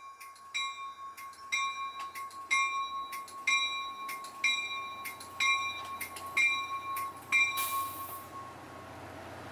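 A train's bell ringing steadily, about one strike a second, over a faint steady high tone. Near the end there is a short hiss of air.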